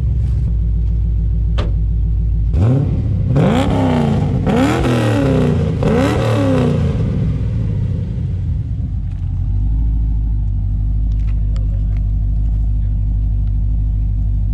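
Holden VL Commodore engine idling, then revved up and let fall back three times in quick succession before settling back to a steady idle.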